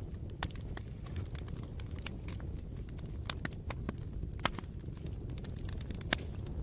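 Wood fire burning, with a steady low rumble under irregular sharp crackles and pops. Two louder pops come about halfway through and near the end.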